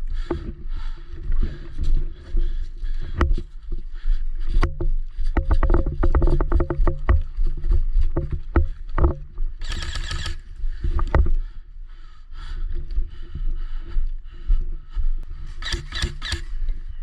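Footsteps and rustling gear as a player walks, over a steady low rumble, with a run of quick knocks in the middle and a few short bursts of hiss.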